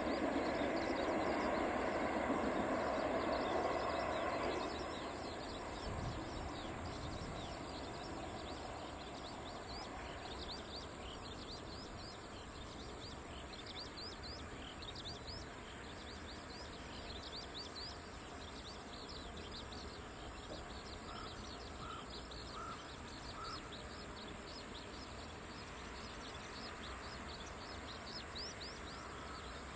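A three-car 103 series 1500 electric multiple unit running away into the distance, its rumble fading out about four to five seconds in. After that, quiet rural ambience with many small high chirps.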